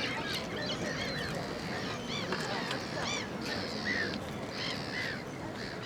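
Birds calling, many short arching calls overlapping, several a second, over a steady background rumble.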